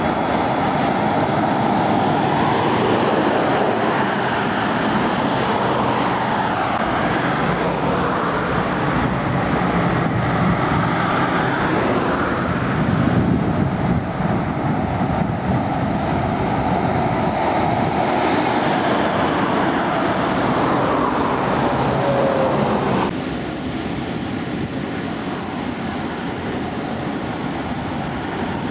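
Scania heavy trucks, among them the 16-litre V8 R620, driving past in dense road traffic: diesel engines running under way over steady tyre and traffic noise. The sound changes abruptly a few times, with a clear drop in level about three-quarters of the way through.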